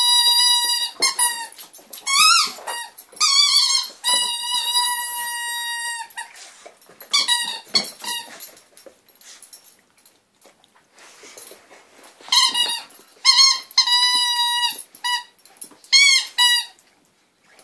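A dog chewing a squeaky toy, squeezing out a series of high squeaks: short ones that bend up and down in pitch, and one held steady for about two seconds. The squeaking dies down for a few seconds in the middle, then starts again in quick bunches.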